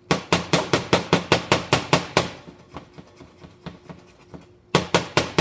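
Steamed-milk frothing pitcher tapped hard and fast against the counter, in two quick runs of sharp knocks about eight a second, the second starting near the end. The tapping breaks up large bubbles to homogenize the milk foam.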